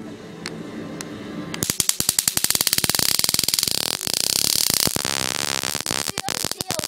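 Handheld stun gun firing its electric arc, a rapid crackle of snaps, heaviest from about a second and a half in to about five seconds in.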